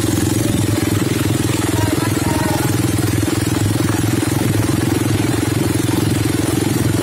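Small ATV engine running steadily at an even, unchanging speed, with no revving.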